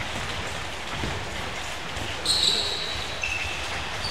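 Futsal play on an indoor sports-hall floor: a ball kicked at the start, then shoes squeaking sharply on the hard floor from about halfway through, all echoing in the large hall.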